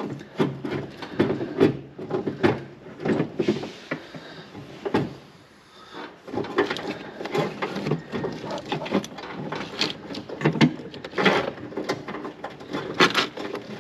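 Irregular knocks, clicks and rattles of a wiring harness being worked into the truck by hand, the plastic loom and connectors knocking against the metal of the body, with a short lull about five to six seconds in.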